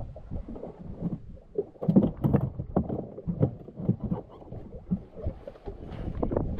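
Water slapping against the hull of a small fishing boat, with irregular knocks and a low rumble of wind on the microphone.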